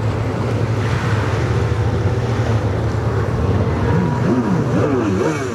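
Racing jet ski (personal watercraft) engines running hard. The engine pitch swoops up and down repeatedly near the end.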